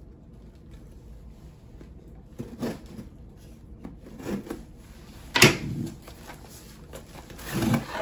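Package handling: a few separate knocks and clunks as a black cardboard product box and scissors are handled inside a shipping box, the sharpest knock a little past halfway.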